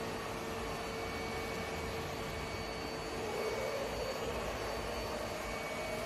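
ILIFE Shinebot W450 mopping robot running as it mops a tiled floor: a steady whirring hum with a thin, constant whine over it.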